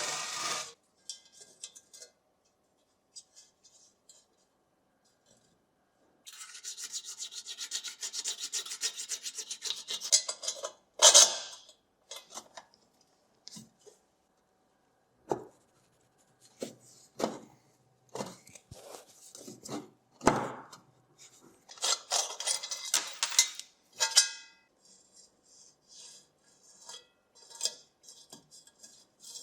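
Hand work on small parts: a few seconds of rapid scrubbing or rasping strokes, then scattered short rubs, scrapes, clicks and knocks. The loudest rubs come about 11 seconds in and again a little past 20 seconds.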